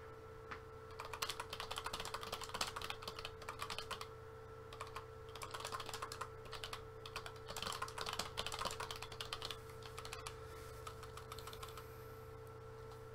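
Typing on a computer keyboard in quick bursts of keystrokes with short pauses between, over a faint steady hum.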